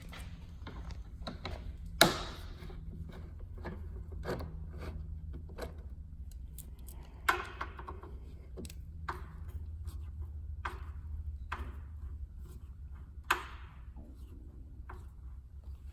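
Scattered clicks and knocks of hand tools and plastic snowmobile body panels being worked on, with three sharper knocks about two, seven and thirteen seconds in, over a steady low hum.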